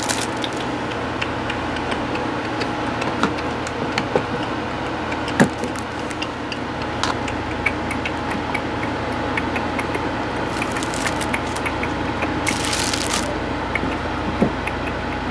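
Makeup tools handled close to a clip-on microphone: scattered small clicks and taps, then two short rustling hisses about two-thirds of the way through, over a steady background hiss and hum.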